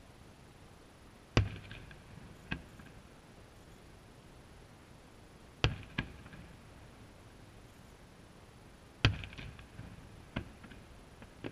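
Distant aerial firework shells bursting: three loud booms roughly three and a half seconds apart, each followed by a quieter bang and a short crackle.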